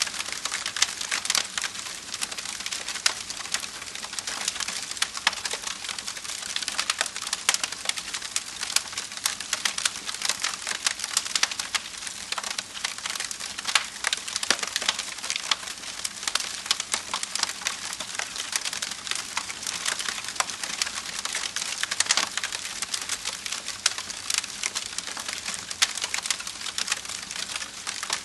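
Wood fire crackling, a steady dense run of small snaps and pops.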